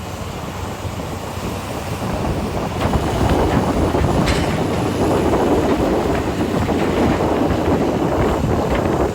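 Komatsu PC800 excavator and HD465 haul truck at work during loading: a deep, continuous rumble of heavy machinery with clattering knocks, swelling louder about three seconds in.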